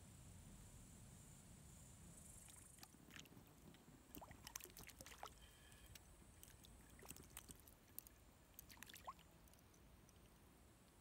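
Faint splashing of a small hooked fish thrashing at the lake surface as it is reeled in on a float rod: a scatter of short, sharp splashes and slaps, bunched from a few seconds in to near the end, over a low murmur of water.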